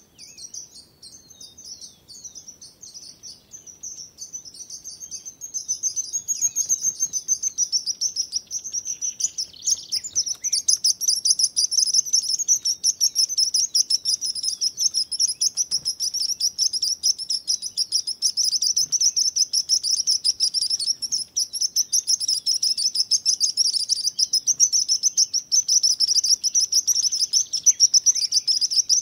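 Sparrow chirping in a rapid, near-continuous stream of high chirps, fainter at first and louder from about five seconds in.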